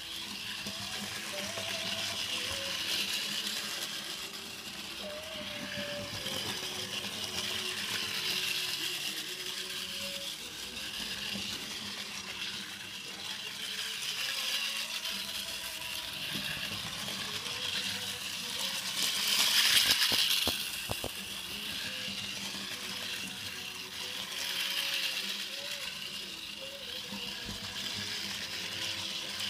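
Small toy train running round a plastic oval track, a light clattering rattle that grows louder and fades again about every five or six seconds as it laps past, loudest about two-thirds of the way through.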